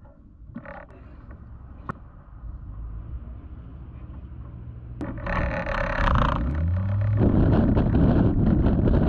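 A few clicks and a knock as the canopy is shut, then a click and the Bristell Classic's Rotax 915 iS engine is cranked on the starter. It catches about seven seconds in, its pitch rising as it comes up to steady running.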